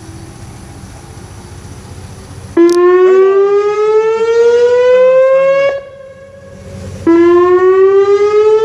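Whelen WPS-2909 outdoor warning siren sounding: a loud tone starts about two and a half seconds in, rises steadily in pitch for about three seconds and cuts off. A second later it starts again low and rises once more.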